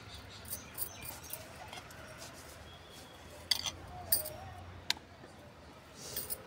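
Wooden rolling pin tapping and clicking against a wooden board as roti dough is rolled out, with a few sharp clicks in the middle.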